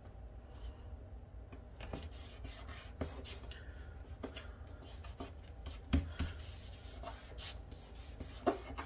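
Hands rubbing and pressing down paper glued onto a manila file folder: a light papery scratching, broken by a few soft taps and one louder thump about six seconds in.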